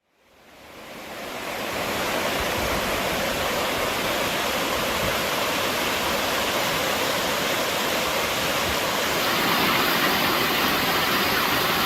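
Rushing water, a steady full noise that fades in over the first couple of seconds and then holds even.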